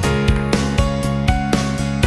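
Background music: guitar-led track with a steady, quick beat.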